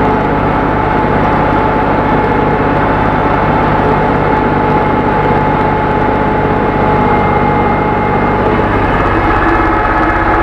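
Ursus tractor's diesel engine running steadily under load while pulling a mounted plough through the soil, with a steady high whine over the engine's drone.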